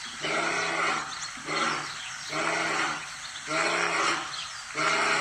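Lion grunting in a regular series: about five short, low, throaty grunts, one roughly every second.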